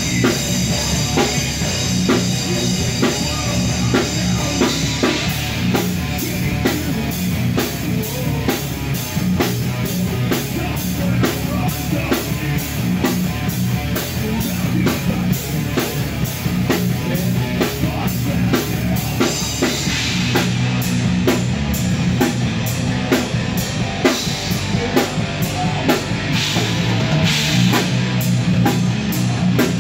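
A heavy metal band playing live: electric guitar and bass guitar through amplifiers, with a drum kit keeping a fast, even beat.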